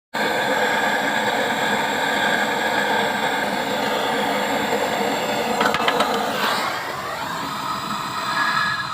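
Steady, loud machine running noise with several steady tones in it, starting abruptly; a few sharp clicks and a falling-then-rising sweep come about six seconds in.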